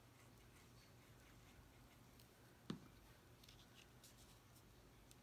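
Near silence with faint paper handling, broken by a single short knock about two and a half seconds in as a small plastic glue bottle is set down on a cutting mat.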